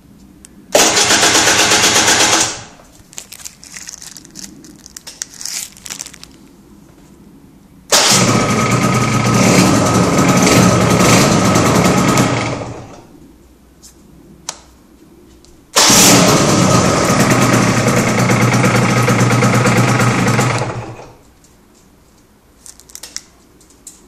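Aprilia RS125's single-cylinder two-stroke engine being started on the electric starter three times: a short burst about a second in, then two longer runs of about five seconds each that fade away at the end.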